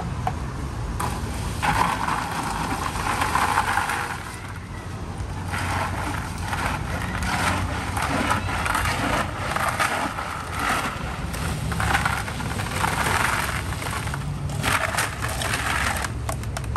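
Ice cubes rattling and crunching as a plastic ladle is stirred through a large plastic drink tub full of ice, in several spells of scraping and clinking, over a steady low rumble of road traffic.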